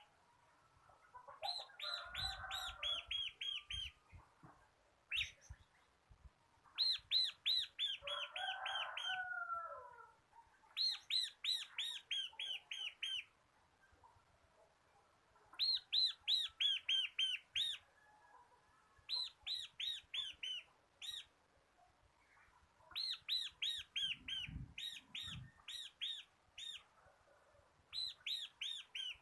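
Ciblek (bar-winged prinia) singing its rapid trilling song: phrase after phrase of quick, high, repeated notes, each burst lasting a second or two with short pauses between. A fainter, lower chattering call joins in twice early on.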